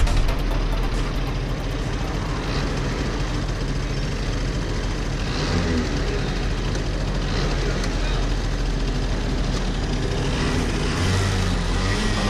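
A small petrol go-kart engine runs steadily as the kart drives along the road, with wind rushing over the microphone.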